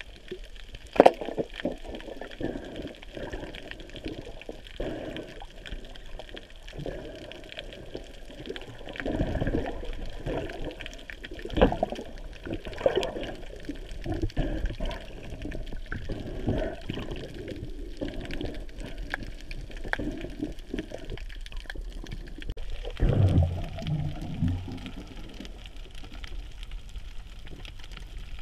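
Water sloshing and splashing in irregular surges, with a sharp knock about a second in and a heavier thump about 23 seconds in.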